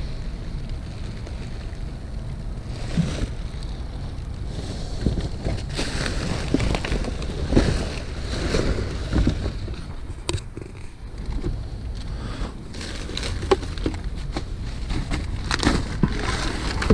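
Low rumble of wind on the microphone, with scattered rustles and knocks of trash being handled in a dumpster.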